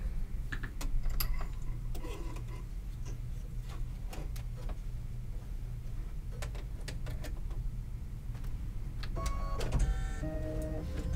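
Light clicks of thread being handled on a Brother Luminaire 2 (Innov-is XP2) embroidery machine, over a steady low hum. Near the end a small motor in the machine whirs for about two seconds in a few stepped tones.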